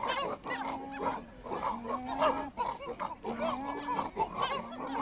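A group of chimpanzees calling: many short overlapping calls rising and falling in pitch, with a few longer low held calls among them.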